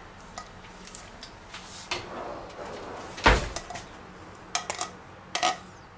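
A tin can of mushrooms being knocked and emptied into a stainless steel bowl. There is one heavy knock about three seconds in, followed by a few light metallic clinks of tin against the bowl.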